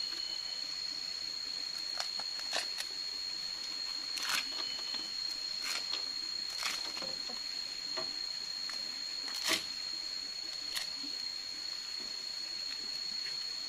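Husks being peeled and torn off ears of corn by hand: irregular rustling and tearing strokes, the sharpest about nine and a half seconds in, over a steady high-pitched tone.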